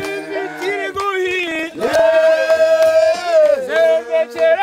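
A group of voices singing together in harmony, holding long notes that swell and glide between pitches.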